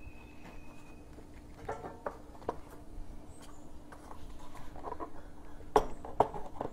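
Hard plastic air-cleaner base being worked down onto a Briggs & Stratton lawn tractor engine over the carburetor: scattered clicks, knocks and rubbing of plastic on metal, with two sharper knocks near the end as it seats.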